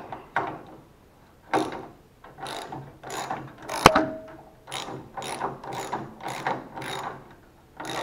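Ratchet wrench tightening the bolts of a car hood latch, clicking in short strokes about twice a second, with one sharp metallic click about four seconds in.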